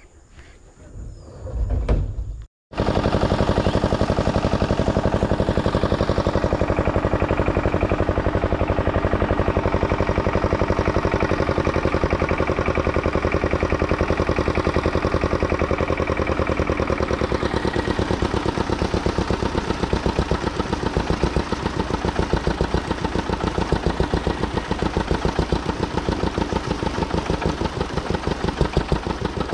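An engine running steadily, with fast, even firing pulses. It starts abruptly at a cut about two and a half seconds in.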